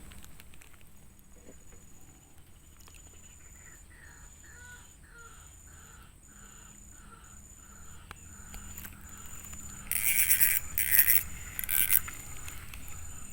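Animal calls outdoors: a run of short calls, about two a second, then three loud, harsh calls close together near the end. A faint, high-pitched pulsing insect-like tone repeats throughout.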